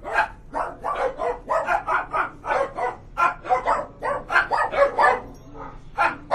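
A dog barking in a rapid run of short barks, about three a second, starting abruptly.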